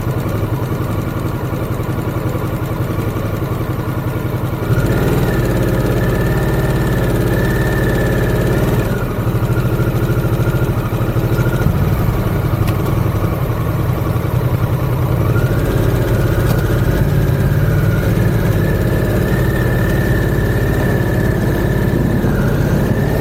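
Motorcycle engine running, loud and steady. The engine gets louder about five seconds in as the bike picks up, eases briefly a few seconds later, and then runs strongly again.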